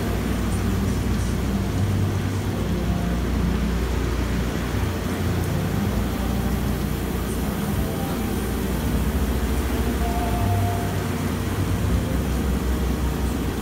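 Bridge-type CNC gantry milling machine rigid-tapping M16 threads with a right-angle attachment head, with coolant fed through the spindle: a steady low machine hum under an even hiss. The hum swells twice, about a second and a half in and again near the end.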